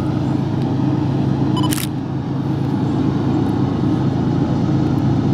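Freight train's diesel locomotives passing under heavy power, a steady loud engine drone.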